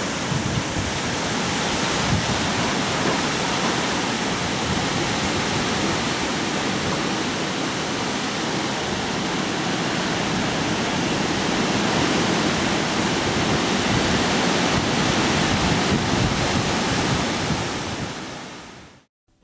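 Hurricane storm noise: a steady rush of wind and rain with no let-up, fading out quickly near the end.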